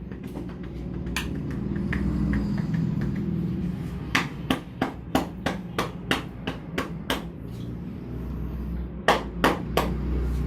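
Massage hands striking the head and shoulders in quick percussive blows, as in Indian head massage tapping. A run of about ten sharp slaps comes at roughly three a second, then three more near the end.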